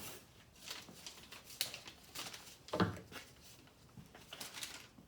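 A box and its packaging being handled: scattered rustles and light knocks, with a few louder knocks about three seconds in.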